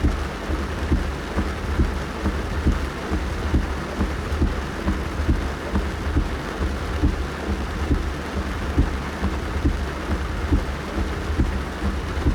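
Rain falling on a car's roof and windscreen, heard from inside the cabin: a steady patter of many irregular, dull drop impacts over a deep, steady rumble.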